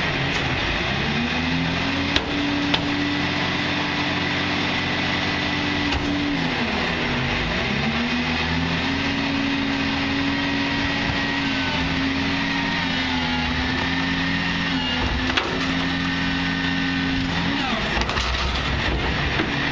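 Rear-load garbage truck's diesel engine held at raised revs for its hydraulics, dropping briefly and running back up several times as the packer and cart tipper work, with a few sharp metal clanks.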